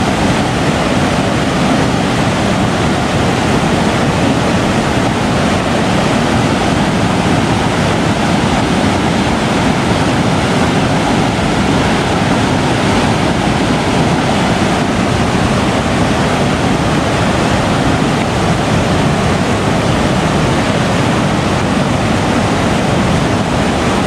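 Water rushing over a river weir: a loud, steady, unbroken rush of churning whitewater.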